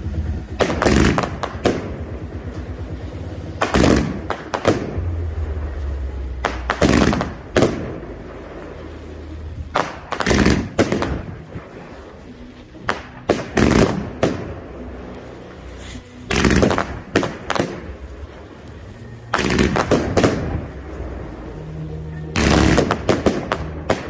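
Aerial fireworks bursting overhead in eight volleys, about one every three seconds. Each is a quick cluster of sharp bangs and crackling stars.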